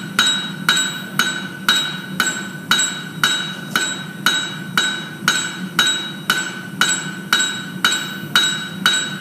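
Hand hammer striking red-hot steel bar over the anvil horn, about two even blows a second, each leaving a bright metallic ring from the anvil: the bar is being necked down to form a bamboo node.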